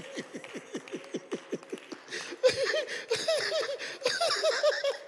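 People laughing at a joke. First come low, quick falling 'ha-ha' pulses, about five a second. From about two and a half seconds in, the laughing turns louder and higher-pitched.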